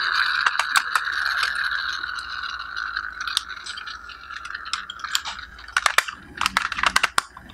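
Plastic clicks and rattles of a toy excavator truck's arm and bucket being worked by hand, coming in a quick cluster near the end. Under them, a steady hiss fades away over the first five seconds.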